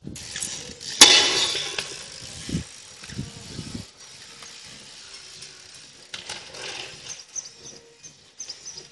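BMX bike being handled: a sharp knock about a second in, then scattered light clicks and rattles.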